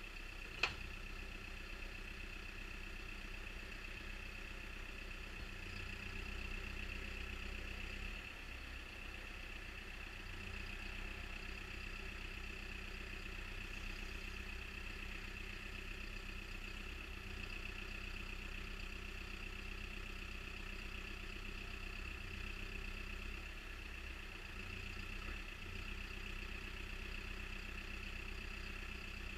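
CAT 420E backhoe loader's diesel engine idling steadily, with a constant high-pitched whine over it and a single sharp click about half a second in.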